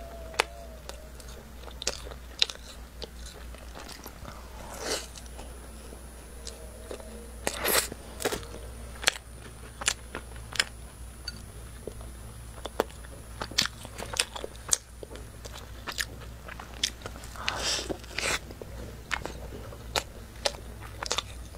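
Close-miked eating of microwave-warmed, chocolate-glazed pastries with a soft custard filling: irregular biting and chewing with many sharp mouth clicks, and a few longer, noisier bites scattered through.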